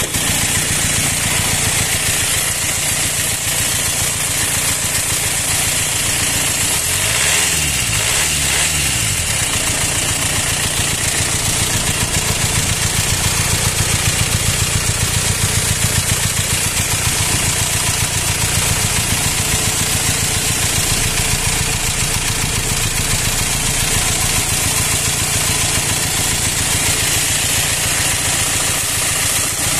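Four-cylinder car engine idling, rough and loud, with a steady hiss; about seven to nine seconds in, its pitch briefly rises and falls twice. The owner says it has run this rough and loud since the timing chain broke and the engine was repaired, and likens the noise to air in the hoses on the intake side.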